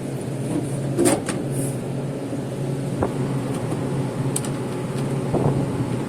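Steady hum of running refrigeration equipment, with a few scattered clicks and knocks as a control board's cover is closed and fastened.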